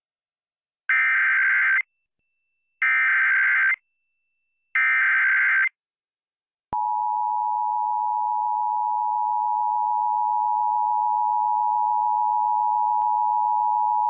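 Emergency Alert System broadcast tones: three bursts of the SAME digital header, a shrill two-tone data screech just under a second each, about a second apart, then after a short gap the steady EAS attention signal, two close tones held together, starting about seven seconds in and running on. The header and attention signal announce an AMBER Alert (child abduction emergency) voice message.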